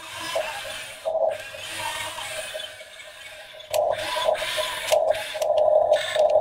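1:16-scale Huina RC toy excavator running, its small electric gear motors whirring as the cab swings and the tracks drive, with its built-in simulated engine sound effect playing from a small speaker. It gets louder a little past halfway through.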